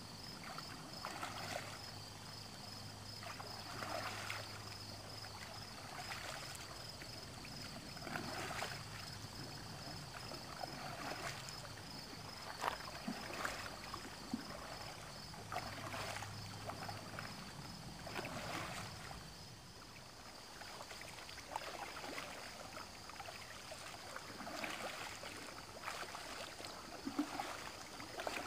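A double-bladed kayak paddle dipping into lake water beside a cardboard boat, a splash and drip with each stroke about every two seconds, with a few sharper splashes or knocks along the way.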